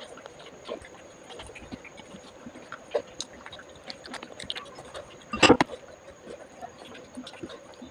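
Close-up eating sounds of a person chewing momos (steamed dumplings): small clicks and mouth noises scattered throughout, with one louder burst about five and a half seconds in.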